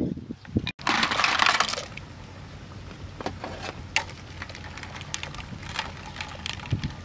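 A short loud rush of noise about a second in, then a metal ladle clicking and scraping against an aluminium cooking pot as soup is stirred.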